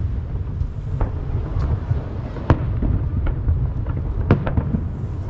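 Aerial fireworks shells bursting over the sea: several sharp bangs, the loudest about halfway through, over a continuous low rumble of booms echoing off the hills that ring the bay.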